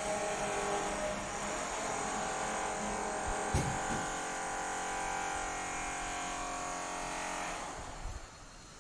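A machine's motor running with a steady whine, fading away near the end, with a single knock about three and a half seconds in.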